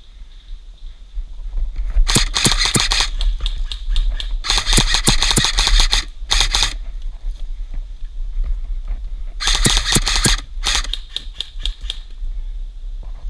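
Airsoft gun firing rapid full-auto bursts of clicking shots: one about two seconds in, a longer burst and a short one around five to six seconds, and two more around ten seconds.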